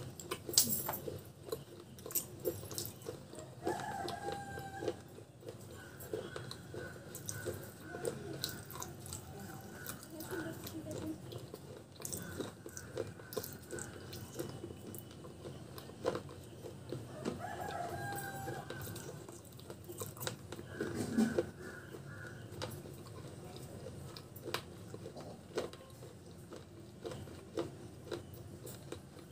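Crunching and chewing of pieces of baked clay pot: many short, irregular crunches. In the background chickens cluck, and a rooster crows twice, about four seconds in and again about seventeen seconds in.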